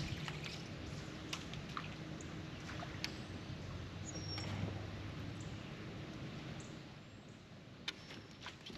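Quiet outdoor ambience on a bass boat on the river: a low steady hum, a few sharp clicks and faint, brief high bird chirps.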